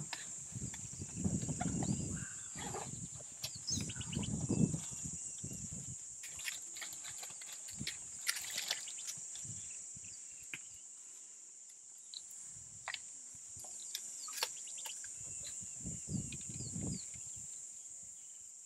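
An African elephant feeding close by: three low, rough sounds, each a second or two long, come near the start, about four seconds in, and about sixteen seconds in, with scattered snaps and clicks between. A steady high insect buzz runs underneath.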